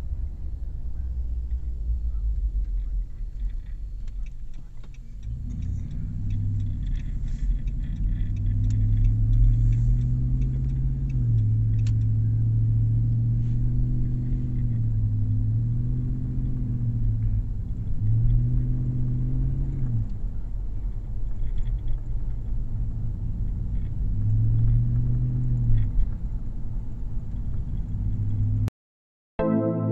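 Ram 1500 pickup's 4.7-litre V8 running under a low rumble; from about five seconds in, its pitch rises and falls in a string of swells about two seconds long, as with repeated revving or driving through gears. The sound cuts off just before the end.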